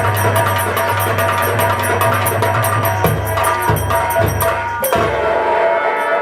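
Nautanki folk-theatre music: percussion keeping a fast, even beat over a held low note and a melody line. The beat and the low note drop out about five seconds in, leaving the melody.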